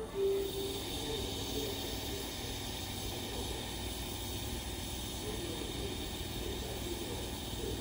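Steady hissing background noise of a railway yard, with a faint, steady high-pitched tone over it.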